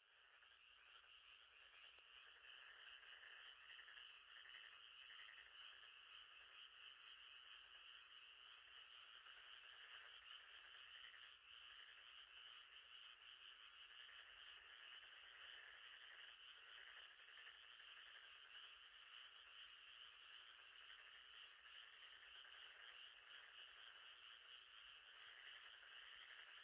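Faint, steady chorus of frogs trilling, many voices overlapping into a continuous pulsing drone. It fades in over the first second.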